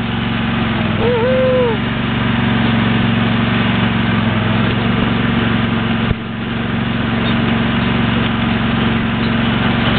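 A motor running steadily at a constant pitch throughout. A short rising-and-falling call comes about a second in, and a single sharp knock just after the middle.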